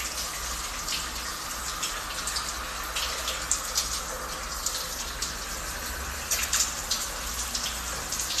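Water running from a tap into a bathtub, a steady gush with brief splashes.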